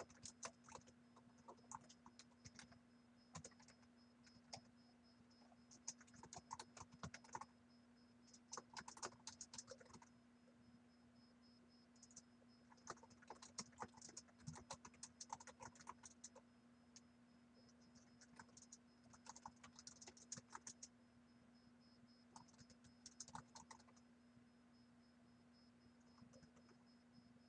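Faint typing on a computer keyboard: quick runs of key clicks broken by short pauses, over a steady low hum.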